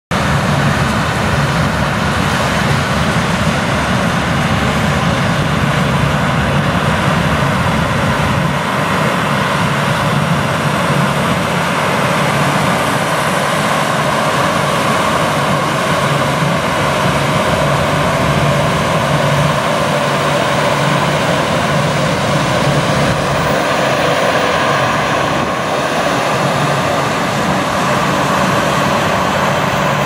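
A CLAAS Lexion 750 TT combine harvesting corn and a CLAAS Xerion tractor pulling a grain cart, their engines and the combine's threshing machinery making a loud, steady drone.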